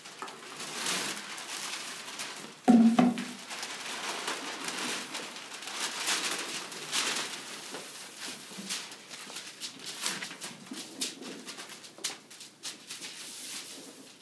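Large sheets of brown craft paper rustling and crackling as they are handled and spread on a hard floor, with shuffling feet. About three seconds in comes one loud, low thud, the loudest sound here.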